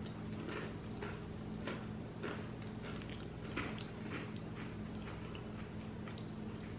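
Crunchy candy-coated chocolates (M&M's) being chewed, a string of faint, irregular crunches over a steady low hum.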